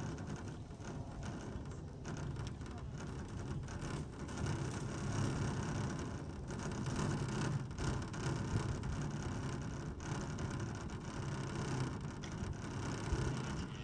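Chairlift ride: a steady low rumble from the moving chair and haul cable, with a few faint clicks.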